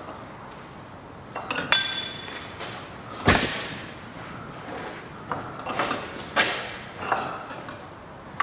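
Metal tools and parts clinking and knocking against each other: a ringing metallic clink a little under two seconds in, a sharp knock about three seconds in, then several shorter knocks and scrapes.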